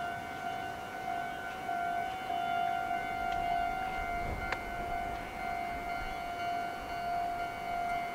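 A steady electronic tone holds one pitch throughout, with fainter higher overtones, and a single sharp clank about four and a half seconds in.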